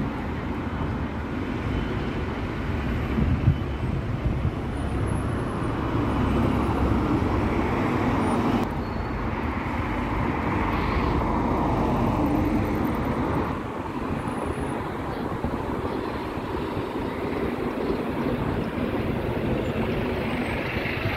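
Road traffic: red London double-decker buses and cars driving past, steady and unbroken, with a bus passing close by near the end.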